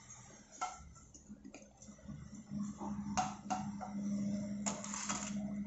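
Light clicks and scrapes of steel tongs on a frying pan as a fried papad is lifted out of the oil, a few separate taps over a low steady hum.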